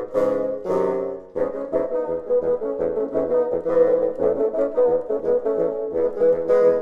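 Bassoon quartet playing in harmony: two loud held chords, then quick repeated notes from about a second and a half in.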